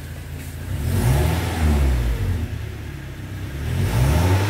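Toyota Innova's petrol engine blipped twice from idle with one plug-in iForce unit fitted. The pitch rises about a second in and falls back, then rises again near the end. The revving is judged lighter with the unit plugged in.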